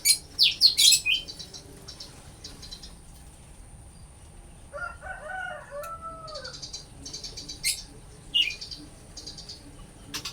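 Birdsong from white-rumped shama and bar-winged prinia. It has sharp downswept calls at the start, repeated high buzzy chattering phrases throughout, a lower warbling phrase in the middle, and a couple of single sharp calls near the end.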